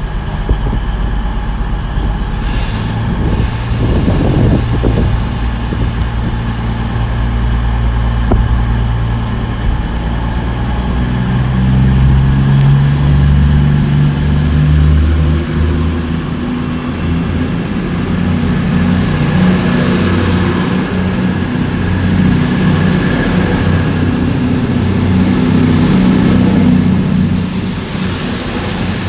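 Two coupled CrossCountry Voyager diesel-electric units, a class 220 and a class 221, pulling out under power with their underfloor diesel engines working. A high whine rises in pitch from about halfway through and then holds steady.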